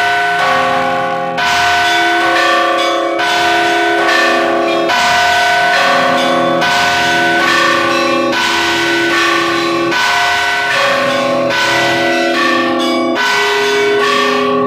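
Russian Orthodox church bells rung together in a continuous peal: heavy strokes at about one a second, with smaller bells sounding in between and their tones overlapping.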